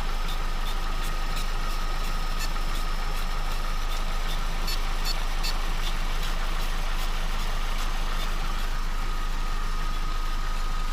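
Vauxhall Astra 1.4 petrol engine idling steadily on a freshly replaced timing chain, without the chain rattle it had before the repair. A thin steady high tone runs through it.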